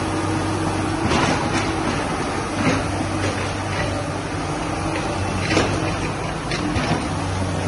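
Hydraulic excavator running with a steady low engine hum, with several sharp clanks and knocks from the machine's arm and bucket as it works.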